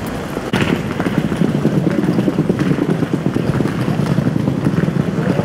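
Urban street ambience outside a railway station: a steady, dense jumble of background noise that gets abruptly louder about half a second in.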